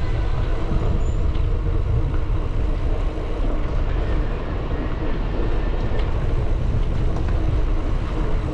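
Wind rushing over the microphone of a rider on a moving bicycle: a steady low rumble with no breaks.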